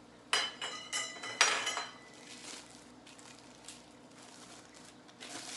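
Metal frame tubes of an elevated pet bed clinking and knocking together as they are handled, with a few ringing clanks in the first two seconds.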